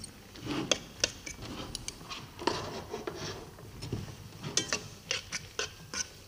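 Metal spoon and fork clinking and scraping against a copper dish while fresh noodles are tossed with butter, in short, irregular clicks and scrapes.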